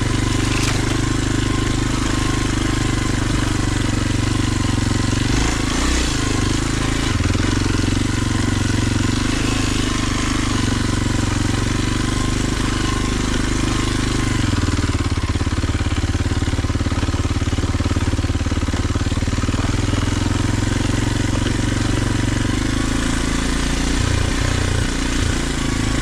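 Kawasaki KLX 230 dual-sport motorcycle's single-cylinder four-stroke engine running steadily while riding a rough dirt trail, its note changing about halfway through. A few knocks come from the bike over rough ground.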